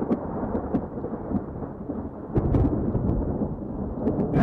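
Thunderstorm: thunder rumbling and surging, with sharp crackles scattered through it.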